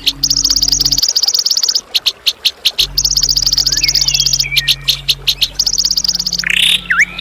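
Songbird recording played as harsh tutor song: three fast, high trills of rapidly repeated notes, each about a second long, separated by sharp single chips, with a short sweeping call near the end. A steady low hum runs underneath.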